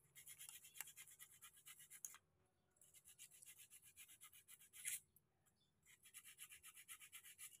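Fast, quiet scratching as a metal tool scrapes around inside a scooter starter motor's end housing to clean it. It comes in three runs with short pauses, with a sharper click about five seconds in.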